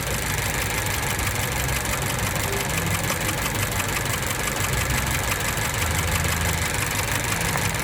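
Car engine idling steadily while being checked for a misfire, with a part just swapped in; the mechanic says it is working.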